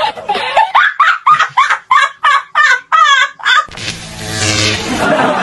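A rapid run of short, high-pitched, laugh-like calls, about four a second, each rising and falling in pitch. They stop about three and a half seconds in and give way to a broad rushing noise.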